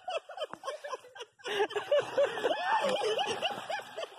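A person laughing in a quick run of short rhythmic pulses, about three a second, with a brief pause a little over a second in.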